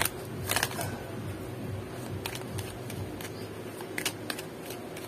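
Oracle card deck shuffled by hand: the cards rustle and slap together in scattered short strokes.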